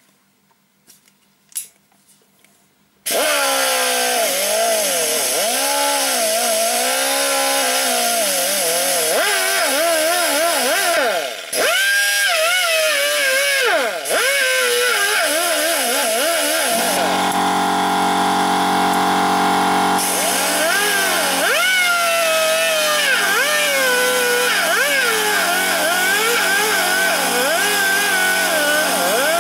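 Pneumatic die grinder fitted with a rubber buffing ball, starting up about three seconds in and running at high speed against the tyre's inner liner, its pitch wavering as it is pressed into the rubber, with two brief dips when the trigger eases. It is buffing off the mould texture and silicone release layer to bare black rubber so the patch will vulcanise.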